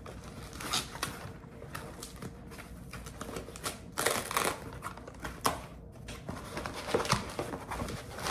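Handling noise: irregular rustling and sharp clicks as small objects and wrapping are handled, with busier clusters about four seconds in and near the end.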